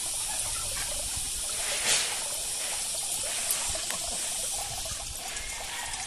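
Water from a garden hose pouring steadily into a pond, a continuous trickling splash, with one brief louder splash about two seconds in.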